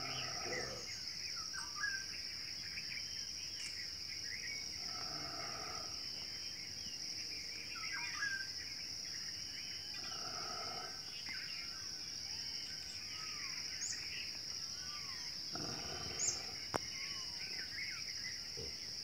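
A steady, high-pitched insect chorus drones throughout, with scattered short bird chirps and whistles over it.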